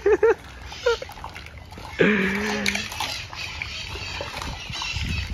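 Strands of plastic beads clattering and swishing as a person walks through a hanging bead curtain, a dense rattle of many small clicks from about two seconds in. Brief voices come near the start, and a short held voice sound comes as the rattling begins.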